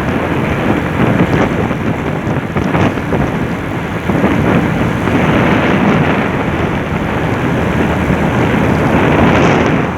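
Strong gusting wind buffeting the microphone on a moving motorcycle: a loud, uneven rushing noise that swells about halfway through and again near the end.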